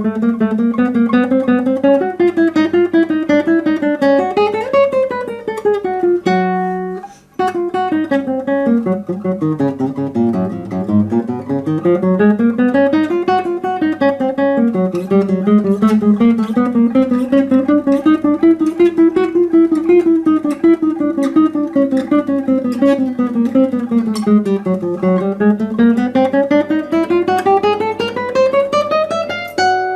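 Classical guitar playing an étude in fast, even arpeggios, the notes running steadily up and down the strings. About six seconds in a chord rings and breaks off briefly, then the flowing arpeggios resume.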